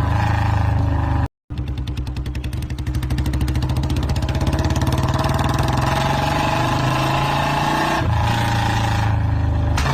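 Royal Enfield motorcycle engine running with an even, rapid pulsing beat. The sound cuts out for a moment about a second in, then resumes and grows louder over the next second or two, shifting again near the end.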